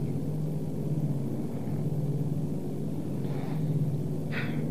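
Grumman Goose seaplane's twin piston engines droning steadily, heard from inside the cockpit. There is a brief higher-pitched sound near the end.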